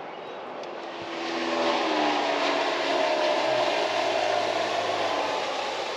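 An engine-driven vehicle passing close by: a hum with a rushing noise that swells about a second in, holds, then slowly fades as its pitch drops slightly.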